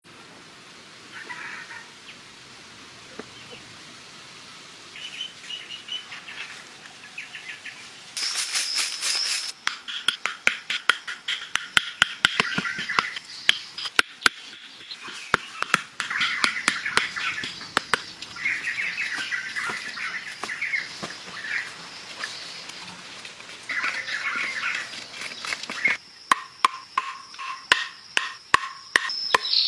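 Runs of sharp knocks, several a second, from wooden and bamboo stakes being hammered and worked by hand, starting about a third of the way in. Small birds chirp throughout, and a high insect buzz comes and goes.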